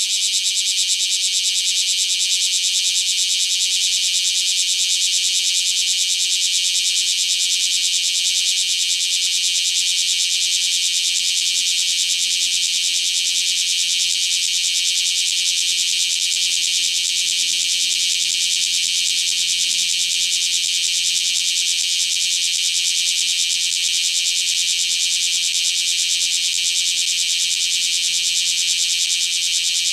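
Bear cicada (Cryptotympana facialis) singing: a loud, unbroken, rapidly pulsing high buzz.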